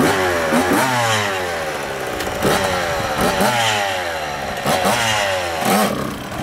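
Two-stroke dirt bike engine being revved in a string of throttle blips, each one rising sharply and then dropping back toward idle.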